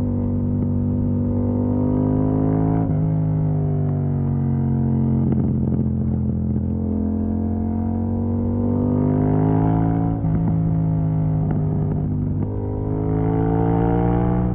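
Yamaha MT-07's parallel-twin engine running loud through an exhaust with the dB killer removed. Engine speed sinks slowly, then climbs twice, with a few short breaks where gears are shifted.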